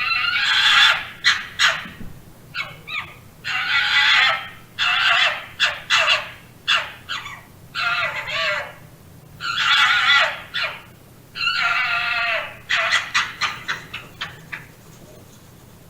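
Fox calling: high-pitched cries about a second long alternating with short sharp yaps, with a quick run of yaps near the end.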